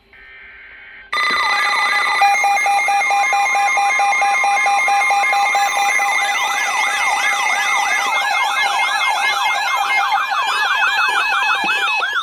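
Several electronic sirens wailing and yelping at once over steady alert tones, starting abruptly about a second in; the rapid up-and-down sweeps grow denser in the second half.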